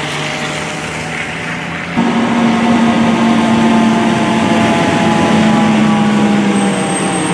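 Fire apparatus arriving, its engine running steadily. About two seconds in, a loud, steady low tone with harmonics comes in and holds for about five seconds.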